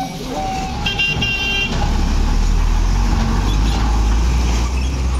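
A vehicle horn toots briefly about a second in. Then a heavy truck's diesel engine rumbles deep and loud as the truck drives slowly past close by.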